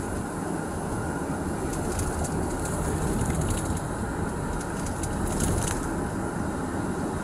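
Steady rumble of road and engine noise inside a moving police patrol car.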